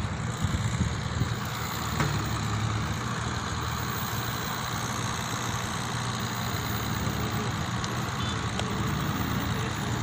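Diesel engine of a JCB backhoe loader running steadily, with a single short knock about two seconds in.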